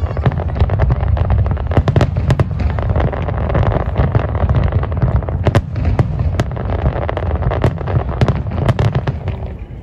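Aerial display fireworks bursting in quick succession: a continuous low rumble of booms with many sharp crackling pops on top, easing slightly near the end.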